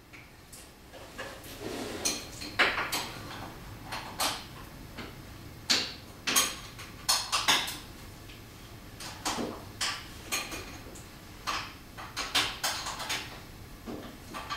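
Metal hand tools clinking and clanking irregularly: sockets and a wrench being picked out and tried on bolts to find the right size, with a dozen or so sharp metallic knocks spread unevenly.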